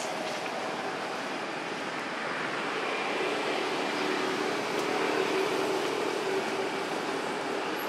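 Steady rushing outdoor background noise, with a faint low hum that swells slightly in the middle and then fades.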